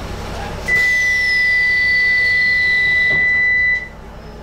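Docklands Light Railway train's door-closing warning tone: one steady high-pitched beep about three seconds long, starting just under a second in and cutting off sharply, with a fainter tone gliding downward above it.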